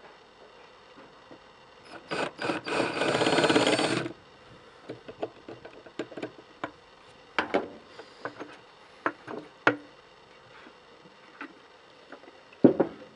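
A power drill starts with a few short bursts, then runs for about two seconds, boring pilot holes in the wooden box for the hinge nails. Scattered light knocks and clicks of handling follow.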